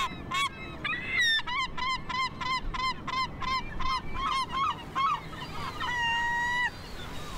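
Herring gull giving its long call: a few opening notes, then a run of about fourteen short, repeated laughing calls at three to four a second that fade out. Near the end comes a single drawn-out, level mew call.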